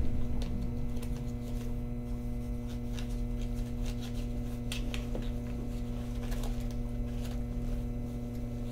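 Cabin of a Hakodate 3000-series tram standing still: a steady electrical hum of several fixed tones from the onboard equipment, with scattered faint clicks and rustles. The running rumble dies away in the first second as the tram comes to a stop.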